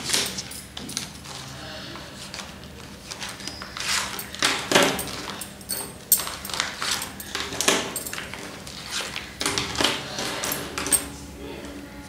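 Irregular clicks, clinks and knocks, a dozen or so scattered through the stretch, some ringing briefly, over a faint steady hum.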